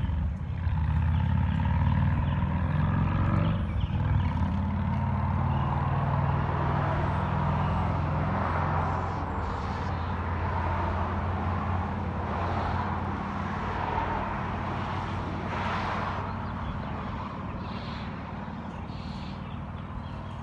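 A motor vehicle's engine running with a steady low hum that slowly fades, over a haze of road noise.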